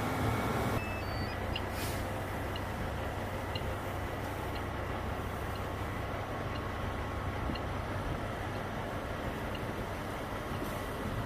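Airport crash fire truck engine running steadily with a low hum under the rushing hiss of hose spray. About a second in the sound changes abruptly, and faint short high beeps repeat about once a second.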